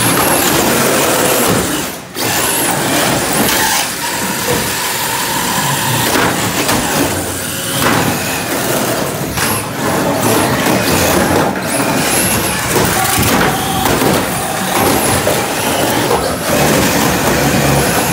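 Radio-controlled derby cars driving and ramming each other on a plywood floor: small motors whining in short rising spurts, wheels scrabbling, and repeated knocks of the plastic bodies hitting one another.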